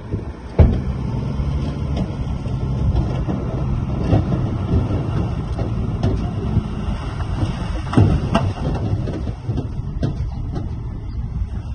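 Heavy diesel earthmoving machinery running steadily under load, with a sharp metallic knock about half a second in and two more knocks near the end.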